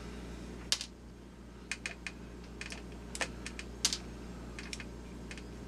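Light, irregular clicks and taps, about ten of them, from small plastic parts of a Lemax Eerie Go Round's gear drive being handled while its motor and gear housing is opened.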